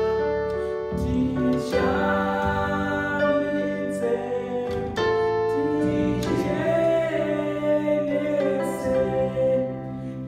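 A young man singing a Shona gospel song solo, in long held notes that slide from one pitch to the next.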